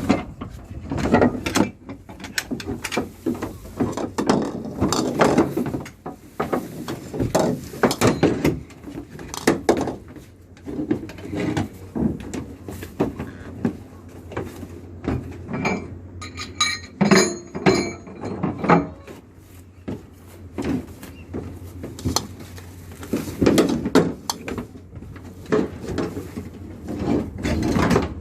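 Irregular mechanical clattering and knocking over a steady low engine hum, typical of gear being worked on a fishing boat's deck.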